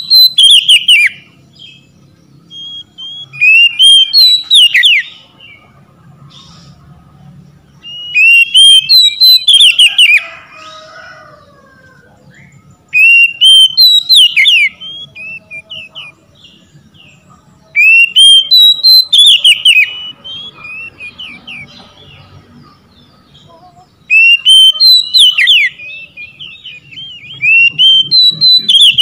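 Oriental magpie-robin singing: about seven loud bursts of rising, whistled phrases, one every four to five seconds, with quiet pauses between.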